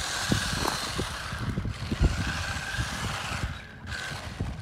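SG-1603 1/16-scale RC drift car's brushed electric motor giving a steady high whine as it drives on asphalt. The whine drops away briefly near the end, then comes back, over an irregular low rumble.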